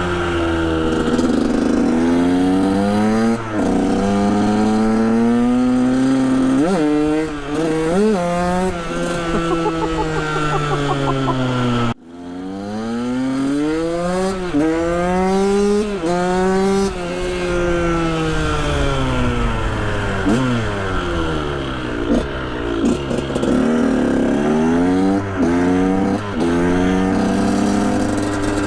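KTM 125 SX's single-cylinder two-stroke engine revving up and easing off again and again as the bike is ridden, its pitch climbing and falling. There is a brief break about twelve seconds in.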